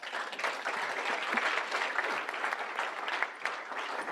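Audience applauding, many hands clapping steadily in a lecture hall.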